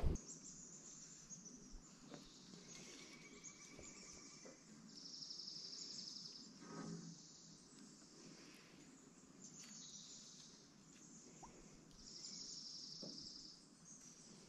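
Faint outdoor ambience with birds calling, including two high buzzy trills about a second long, about five and twelve seconds in. A brief low bump comes about seven seconds in.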